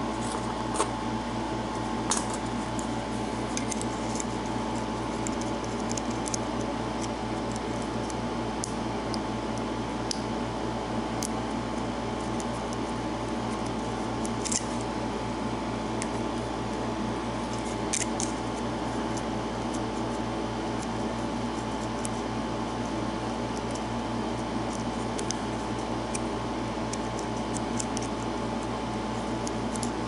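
Lock pick working the pin stack of a brass six-pin American Padlock Series 20 under tension: scattered faint metallic ticks and scrapes, strongest about a second in, two seconds in, midway and near eighteen seconds. A steady background hum runs underneath.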